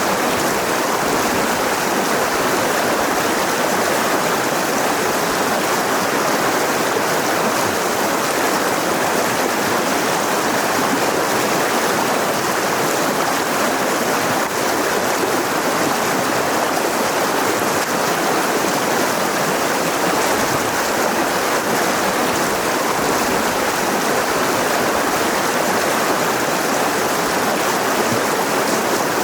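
Mountain river rushing and splashing over rocks: a steady, even roar of flowing water.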